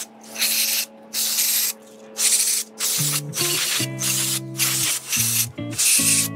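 Aerosol cleaner sprayed in repeated short hissing bursts through a red extension straw into the oil galleys of a Honda F23 crankshaft, about one burst every 0.7 s with brief pauses between. Background music comes in about three seconds in.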